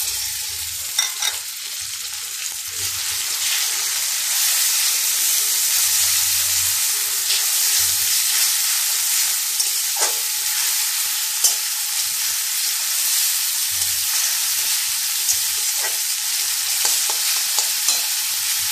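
Onion paste sizzling steadily in hot oil in a steel kadai, just added over fried garlic and chopped onion, with scattered scrapes and taps of a metal spatula stirring it against the pan.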